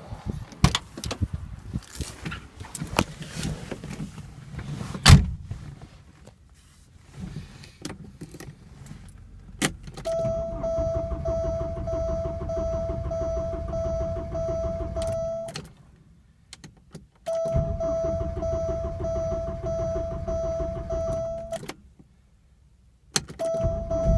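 A 1986 Porsche 944's starter cranking its 2.5-litre four-cylinder engine in three attempts of a few seconds each with an even pulsing, the engine not catching and the cranking cutting off each time: the hard starting the owner is troubleshooting. Before the cranking, a string of knocks and clicks.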